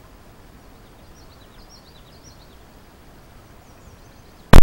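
Quiet outdoor hiss with a bird chirping a string of short high notes. Near the end comes the sudden, very loud blast of a 6.5 lb Tannerite charge detonating on a beaver dam.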